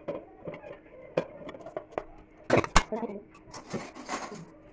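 Chopped mango pieces and other chutney ingredients being tipped into a stainless-steel mixer grinder jar: light taps and clatter against the steel, with two louder knocks about halfway through.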